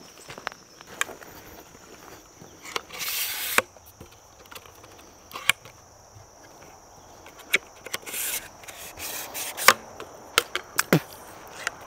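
Footsteps along a woodland swamp trail: irregular sharp woody cracks of twigs and sticks snapping underfoot, with two short bursts of rustling brush.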